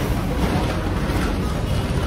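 Diesel locomotive standing at the platform with its engine running, a steady low rumble.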